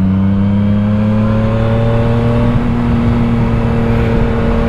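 Motorcycle engine running at a steady speed, its hum rising slightly in pitch over the first couple of seconds.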